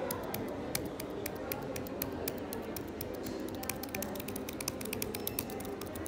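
Typing on an Apple Magic Keyboard with Touch ID: its low-profile scissor-switch keys give a quick, irregular run of light clicks, several a second, over a steady background hum.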